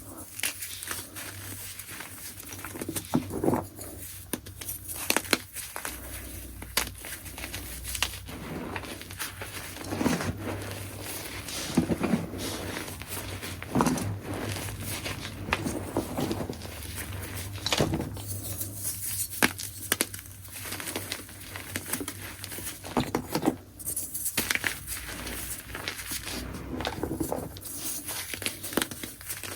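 Gym chalk chunks being crushed: a steady run of soft crumbling and crunching, with sharper cracks every couple of seconds.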